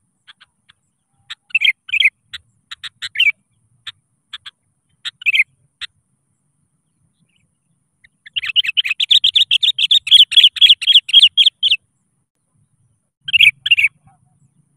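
Sooty-headed bulbul (kutilang) calling, in scattered short chirps and brief phrases at first. About eight seconds in it breaks into a fast run of rapid chattering notes lasting about three and a half seconds, then gives a couple more short phrases near the end.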